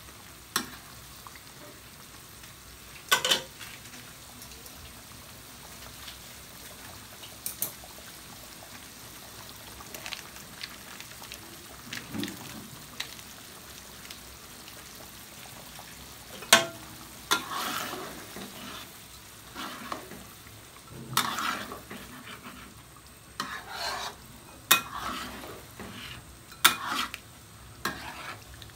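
Thick sauce simmering in a wok, stirred with a metal spatula that scrapes and knocks against the pan in sharp strokes, a few early on and more often in the second half.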